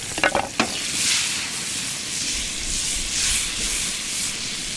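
Chunks of burbot frying in browned butter in a frying pan: a steady sizzle that swells and fades as the pan is tossed. A few quick knocks come near the start.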